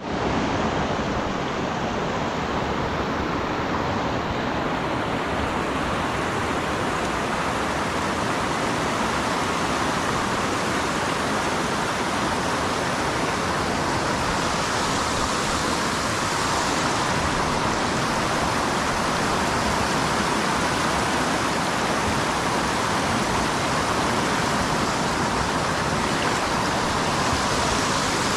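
River water rushing over rocks in shallow rapids: a steady, even rush that begins abruptly and does not change.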